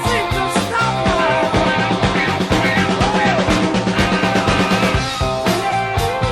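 Rock music soundtrack with electric guitar over a steady drum beat.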